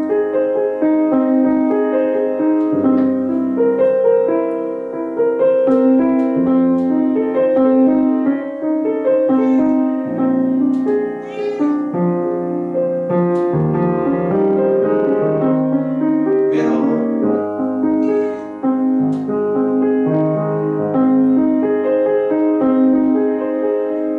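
Grand piano playing a piece of held chords under a melody.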